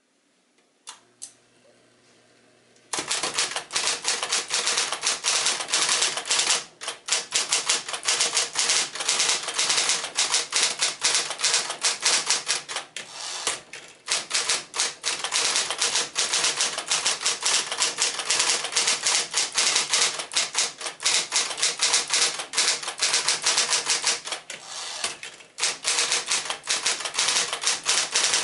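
1965 Sears Electric Twelve electric portable typewriter (Smith-Corona 5-series mechanism). There are a couple of clicks about a second in. From about three seconds in it types rapidly: a fast run of key strikes over the steady hum of its motor, with a few brief pauses.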